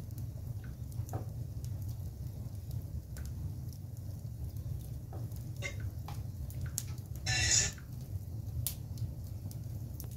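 Wood fire burning in a fireplace: a steady low rumble with scattered sharp crackles, and a louder half-second hissing burst about seven seconds in.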